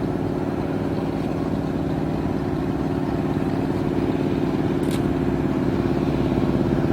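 Float plane's engine running steadily, slowly getting louder, with a brief faint tick about five seconds in.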